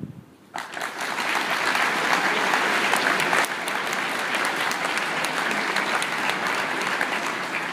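Audience applause in a large hall, breaking out suddenly about half a second in and continuing steadily at full strength.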